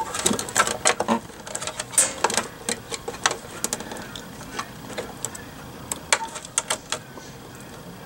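Wires and multimeter test probes being handled inside a metal electrical box: many irregular clicks, taps and rattles, busiest in the first three seconds or so and thinning out after.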